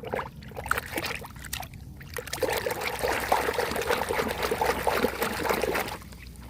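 Water trickling and splashing over a toy car as it is washed, with small knocks mixed in. It gets heavier from about two and a half seconds in until about six seconds.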